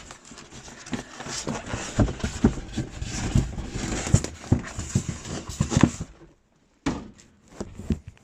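Close handling noise as the recording phone is set down and a cardboard box is opened: a rapid run of knocks, scrapes and rustling, then a short silence and a few more knocks near the end.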